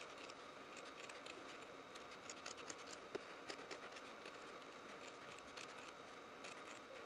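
Scissors snipping through embroidered fabric: faint, short cuts in quick irregular succession over a faint steady hum.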